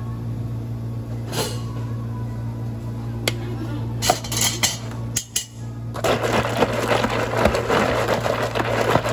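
Ice rattling hard inside a lidded plastic cup as a cola drink is shaken to mix it, starting about six seconds in. Before that come a few light knocks from the cup being handled, over a steady low hum.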